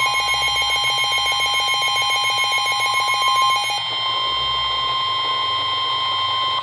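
NOAA Weather Radio warning alarm tone, a loud steady high tone of about 1050 Hz, sounding ahead of a severe thunderstorm warning broadcast. For the first four seconds a fast pulsing alarm beep sounds over it. The tone stops near the end.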